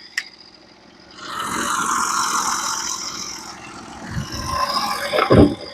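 Scraping of a sawn wood slab being pulled and moved on the sawmill, rising about a second in and lasting a couple of seconds, with a low knock near the end.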